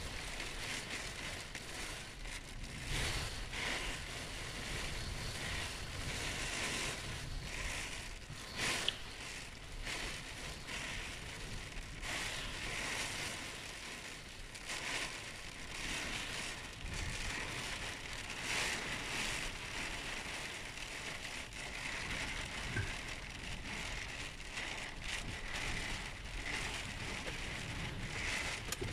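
Hailstones pelting a glass pane in a hail storm: a dense, continuous rattle of tiny ticks that swells and eases every second or two, with a low rumble of wind underneath.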